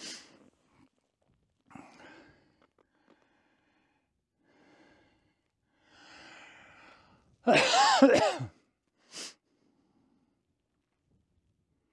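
A person sneezing once, loudly, about seven and a half seconds in, followed by a short sharp breath. Faint breathing and small handling noises come before it.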